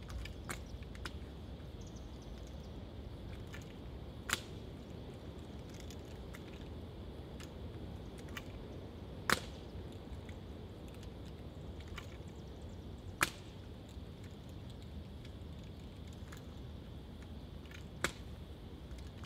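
Gloved hands catching and slapping a drill rifle as it is spun: four sharp smacks spaced several seconds apart, with fainter taps between, over a steady low background noise.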